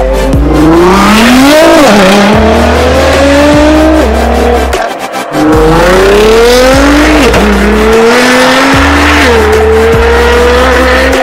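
Sports car engine accelerating hard, its pitch climbing and then dropping sharply at each upshift, about five climbs with a short break near the middle. Bass-heavy music plays underneath.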